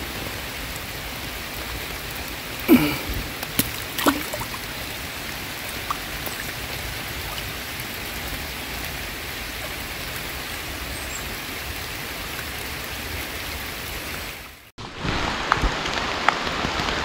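Steady rain falling on a pond's surface, with a few short, sharp sounds about three to four seconds in. The sound breaks off for a moment near the end, and the rain comes back a little louder.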